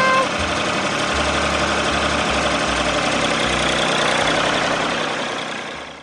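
Tractor engine running steadily with a low rumble, fading out near the end.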